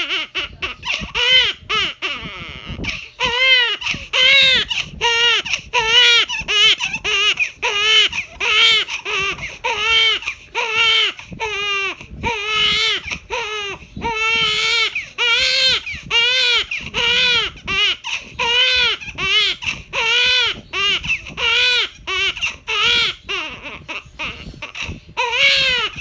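Loud, high-pitched crying: short wails that rise and fall in pitch, one after another without a break, with quick catches of breath between them.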